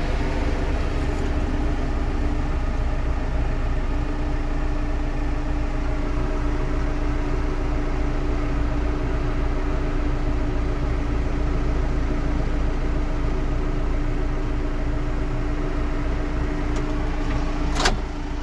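Diesel engine of farm machinery idling steadily, with a single sharp click near the end.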